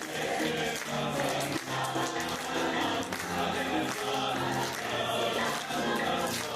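Background music with held notes that change every half second or so, close to a choir's sound.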